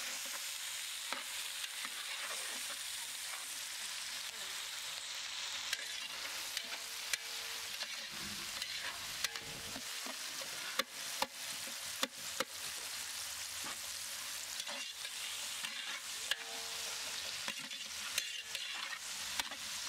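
Chopped onions, tomatoes and coriander sizzling in groundnut oil in a large metal pot, the frying base for a fish curry. A metal spatula stirs them, scraping and clicking against the pot many times.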